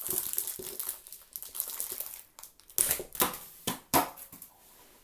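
Plastic wrapping crinkling and crackling as it is handled and pulled open to unwrap a speedcube, with a few louder sharp crackles about three seconds in.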